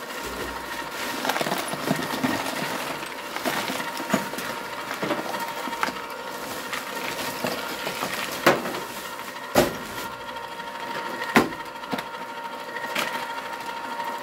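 Electric bucket-style ice cream maker's motor running with a steady whine while ice cubes are poured into the bucket around the canister, clattering, with three sharper knocks of ice in the second half.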